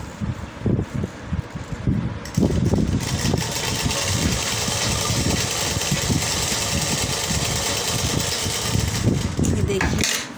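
Domestic sewing machine stitching through fabric: a few short stop-start bursts, then from about two seconds in it runs steadily at speed until it stops near the end.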